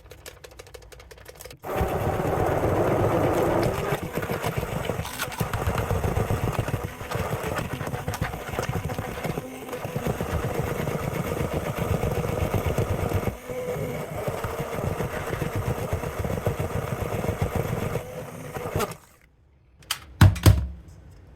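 Hand blender running in a very thick mix of frozen banana, ice, Greek yogurt and protein powder. It starts abruptly, its level wavering as it works through the mix, and it stops about two seconds before the end. A couple of sharp loud knocks follow.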